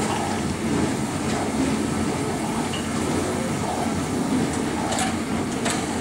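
Turntable carrying the class 52 steam locomotive 52 8079: a steady rumble, with two sharp clicks near the end.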